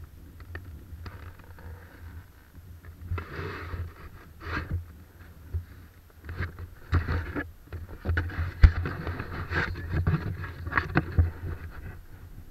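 Irregular rustling, scraping and sharp knocks of a caver handling a notebook and gear, over a steady low rumble.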